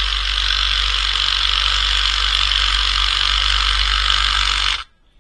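Cordless impact driver hammering steadily on the top nut of a Bilstein 5100 strut, run in reverse as needed for it to tighten, then stopping abruptly near the end.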